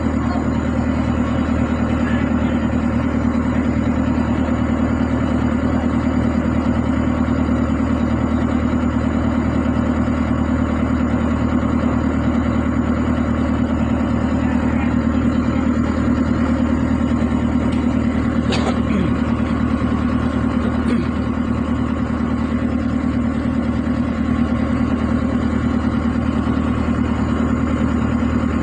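Excavator's diesel engine idling steadily. A single sharp click sounds about eighteen seconds in.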